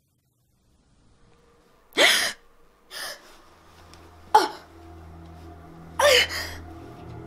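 A young woman gasping in pain as she wakes, four sharp gasps a second or two apart, the second one softer.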